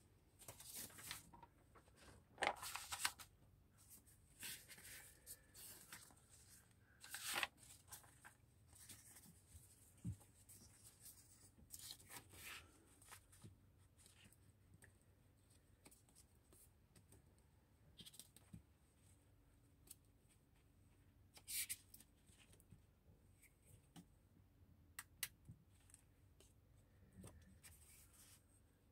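Faint, scattered rustling and soft taps of paper and cardstock being handled, slid and laid down on a tabletop, with short bursts every few seconds and quiet room tone between.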